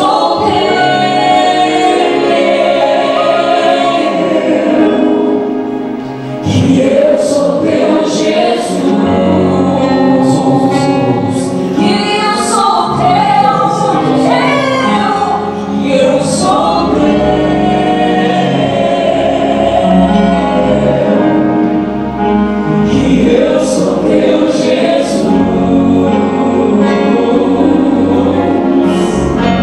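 A group of voices singing a worship song together in sustained phrases, over instrumental accompaniment.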